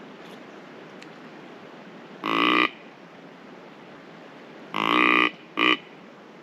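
Deer call blown by the hunter: a loud buzzy note about two seconds in, a longer one near five seconds, then a short blast right after.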